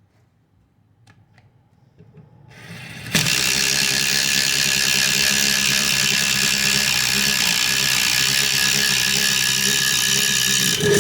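Ridgid subcompact brushless impact driver boring a 3/4-inch Spyder Stinger auger bit through a wooden 4x4, running loud and steady under load. It starts about three seconds in, after a few faint clicks.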